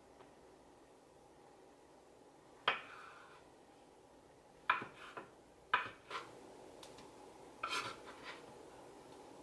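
Kitchen knife cutting fresh figs on a wooden cutting board: a handful of separate sharp knocks of the blade on the board, with a short cluster of knocks and clinks near the end.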